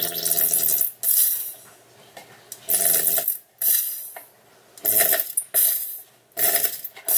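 Plastic honey squeeze bottle held upside down and squeezed again and again, about seven short noisy bursts of half a second or so each. The bottle is nearly empty.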